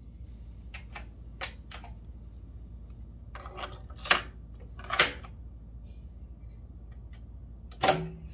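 Sharp mechanical clicks and clunks from a JVC KD-A55 cassette deck as its cassette door is opened and shut and its transport keys are pressed. The loudest two come about four and five seconds in, and a last clunk near the end is the play key engaging the transport. A low steady hum sits underneath.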